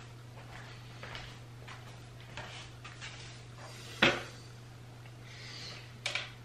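A hand tapping a digital bathroom scale on the floor to wake it: one sharp knock about four seconds in and a second, lighter tap near the end, with a few soft knocks before, over a steady low hum.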